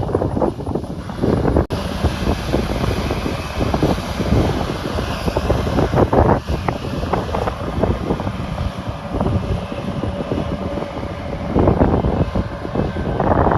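Heavy farm machinery engine running steadily under load, with wind buffeting the microphone. There is a brief click just under two seconds in.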